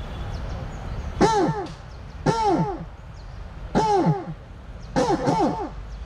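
A man's voice imitating crow caws: four loud "kaa" calls about a second apart, each rising and then falling in pitch, and the last one doubled.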